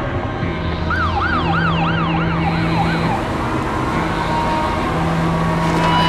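A siren's fast rising-and-falling wail, about three sweeps a second, from about a second in until about three seconds in. Under it runs a steady rushing noise and a low hum that switches on and off.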